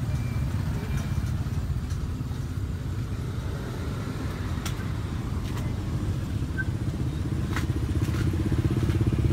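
A small engine running steadily as a low, pulsing rumble that grows a little louder near the end, with a few faint light clicks.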